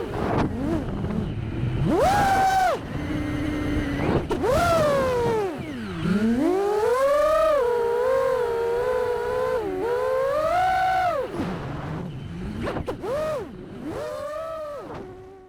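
A 5-inch FPV freestyle quadcopter's brushless motors whine. Their pitch swoops up and down with the throttle through a run of climbs and dives, with a few short bursts near the end before fading out.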